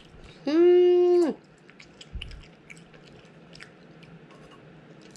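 Someone eating, with small scattered chewing and mouth clicks. About half a second in comes one loud held vocal note at a steady pitch, lasting under a second.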